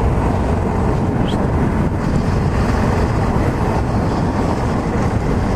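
Yamaha XT660Z Ténéré's single-cylinder engine running steadily at a moderate cruise on a dirt road, mixed with wind rushing over the microphone.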